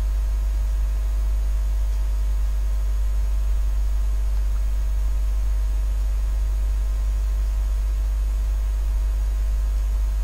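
Steady low electrical mains hum, unchanging throughout, with a faint steady higher tone above it.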